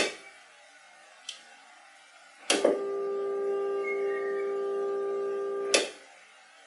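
Steady test tone with overtones played through a 1970s Univox U-1226 tube guitar amp, holding an even level with no tremolo pulsing. It is switched on with a loud click about two and a half seconds in and cut off with another click near the end, after a sharp click at the start and a small one about a second in.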